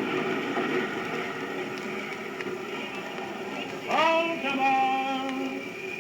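Train sound effect from a 78 rpm record: a steady running-train noise, then about four seconds in a train whistle sounds, sliding up in pitch into a held chord, in two blasts, the second longer.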